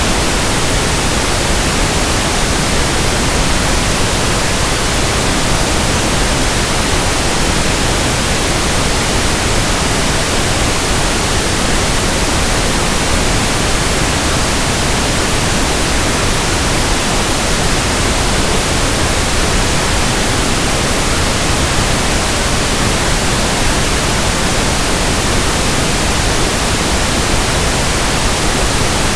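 Pink noise test signal at a steady level: an even, unchanging hiss across the whole range.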